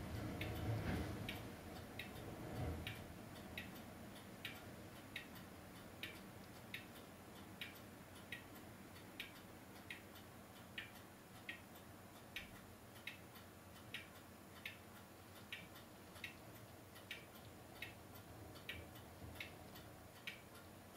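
Faint, evenly spaced ticks, a little more than one a second, over a low hiss, with a low rumble during the first few seconds.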